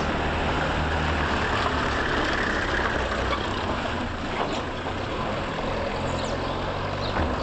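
Passenger minibus driving past on a dirt road, its engine running low and steady under a hiss of road noise. The noise is strongest about two seconds in and eases a little as it pulls away.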